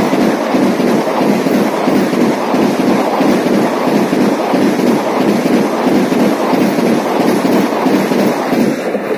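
Vande Bharat electric multiple-unit train passing close by at speed: a loud, steady rush of wheels on rail and displaced air, easing off near the end as the last coach goes by.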